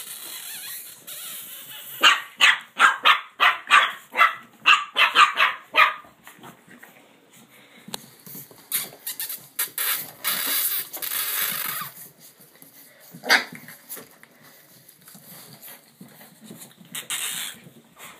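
Boston Terrier puppies barking and yipping in play: a quick run of about a dozen short barks, then a stretch of scuffling noise and a couple of single sharp barks later.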